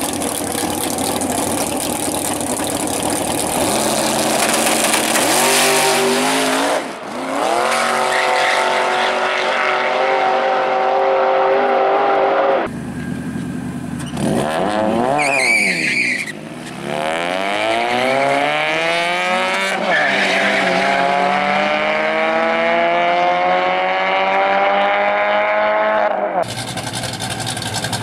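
Drag racing engines at full throttle, accelerating hard down the strip, their pitch climbing steadily over several seconds. The sound breaks off abruptly twice between runs.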